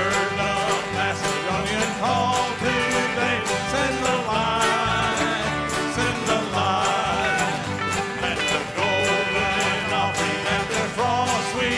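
Live bluegrass band playing, with banjo picking over strummed acoustic guitars, bass and drums, and a steady beat.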